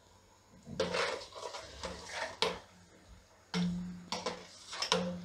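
Plastic slotted spoon stirring salt into hot water in a stainless steel pot, in several short sweeps that scrape and knock against the pot's sides, with a few sharp clicks.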